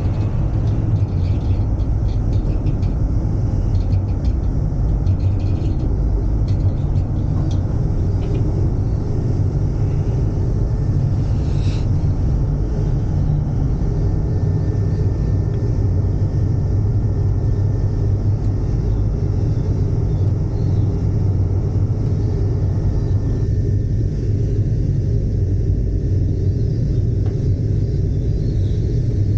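Steady low rumble inside a ropeway gondola cabin as it runs along the cable, with light clicks in the first twelve seconds or so.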